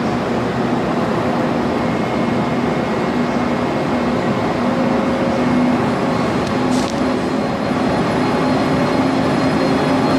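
Train running with a steady hum over a low drone, and a short high hiss about seven seconds in.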